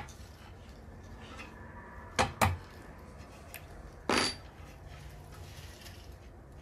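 Two sharp clicks about two seconds in, then a short ringing metal clink a little after four seconds, as the blade wrench and spindle lock of a Hercules brushless circular saw are worked during a blade change.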